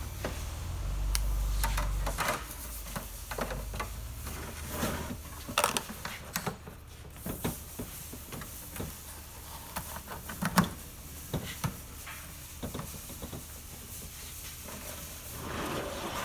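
Handling noise from working plastic netting onto a Christmas tree baler and its ring: scattered light knocks, clicks and rustles, with a low rumble in the first two seconds.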